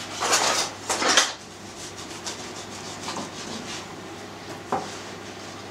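Bread knife sawing through the crust of a sourdough loaf on a wooden board, its crust baked dark and crisp: two loud rasping strokes in the first second and a half, then lighter strokes, and a sharp knock near the end.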